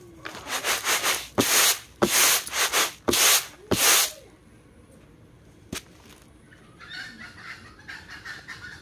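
Rice being winnowed on a round bamboo winnowing tray: four sharp tosses, each a loud swish of grain ending in a tap, in the first four seconds. Faint chicken clucking follows near the end.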